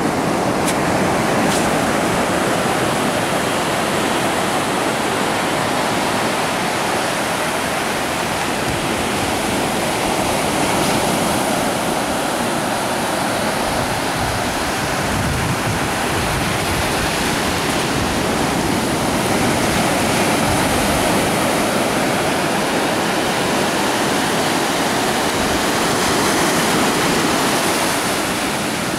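Ocean surf breaking and washing up a sandy beach: a steady rushing wash that swells and eases slowly.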